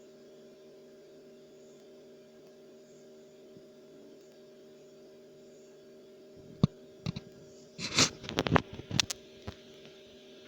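Fireworks going off over a steady low hum: two sharp bangs about two-thirds of the way in, then a quick cluster of louder bangs and crackles lasting about two seconds.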